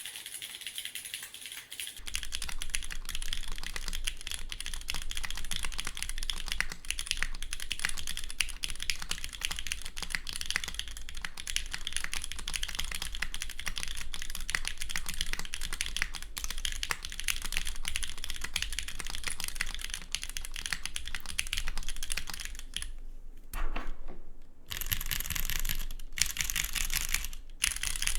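Typing on a Geon Works F1-8X v2 TKL mechanical keyboard: gasket mount, aluminium plate, Gateron Milky Yellow Pro linear switches and TX stabilizers lubed with Krytox 205g0, GMK keycaps. Rapid, continuous keystrokes that break off briefly about 23 seconds in and resume more sparsely.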